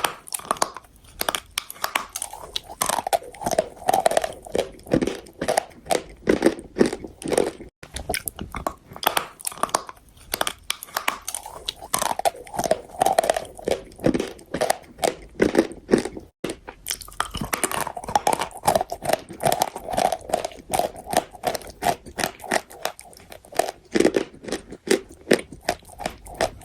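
A person chewing chalk: a steady run of crisp crunches, several a second, with brief breaks twice.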